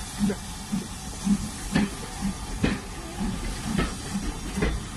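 Steam train moving off, its coaches rolling close past with a steady hiss and a regular low beat about twice a second, plus a few sharper clicks.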